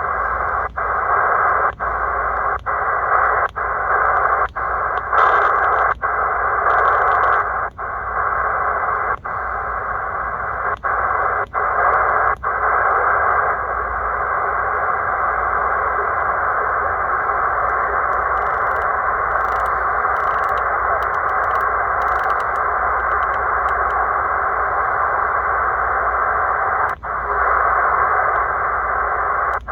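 C. Crane CC Skywave SSB portable receiver hissing with band noise from its speaker in upper-sideband mode, the audio cutting out briefly about a dozen times in the first half as each tuning step mutes the set. The hiss then runs on steadily, with one more short dropout near the end.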